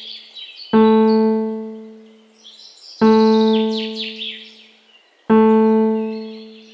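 Relaxation music: a single low piano-like keyboard note struck three times, about every two and a quarter seconds, each ringing out and fading slowly. Birds chirp and twitter above it.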